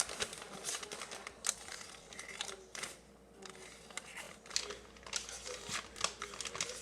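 Slime being squished and worked by hand, making irregular small crackling clicks and pops, with a brief lull about halfway through.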